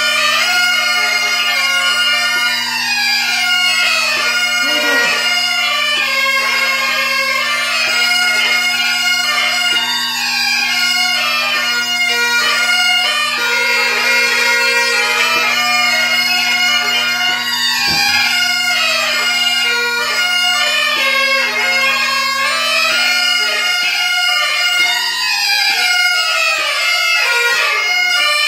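Several Highland bagpipes playing a tune together: steady drones under a running chanter melody. The drones die away near the end.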